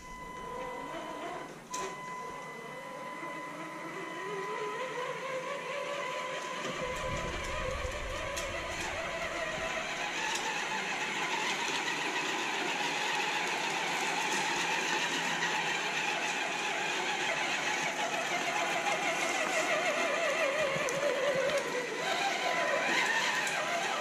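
Electric drive motor and gearbox of a radio-controlled Tonka fire truck conversion whining as the truck drives around on a concrete floor, the pitch rising and falling with speed. A steady high tone runs underneath.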